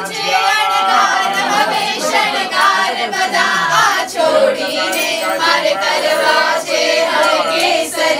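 A group of voices singing together, with several overlapping voices holding and bending the melody.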